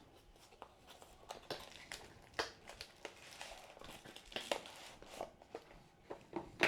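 Box packaging and a plastic carbon monoxide alarm being handled as the alarm is taken out: faint, irregular rustling and crinkling with scattered small clicks, and a sharper knock near the end.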